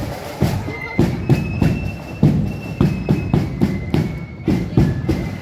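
A marching band playing: a drum beats steadily about twice a second, with a thin, high melody line above it.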